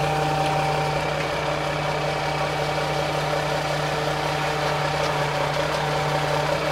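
Flatbed truck's engine idling steadily with a constant low hum; a higher whine in it drops away about a second in and comes back near the end.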